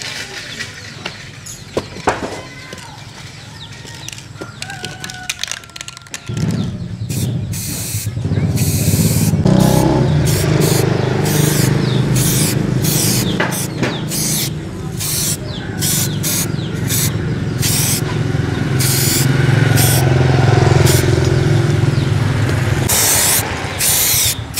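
Short hisses of an aerosol spray-paint can sprayed in quick bursts. From about six seconds in, a loud, steady, low engine-like rumble takes over and stays the loudest sound.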